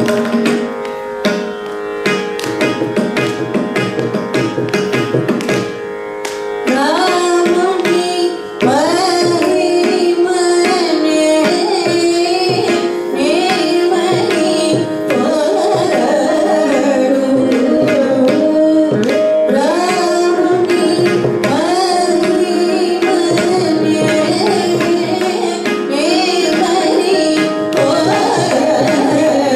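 Carnatic concert music in raga Kambhoji: a mridangam plays steady strokes over a drone, and about seven seconds in a woman's voice and an electronic keyboard take up the ornamented, gliding melody over the drumming.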